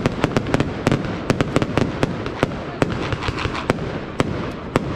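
Fireworks display: a rapid, irregular run of sharp bangs and reports from aerial shells and battery cakes, several a second, over a steady crackling hiss.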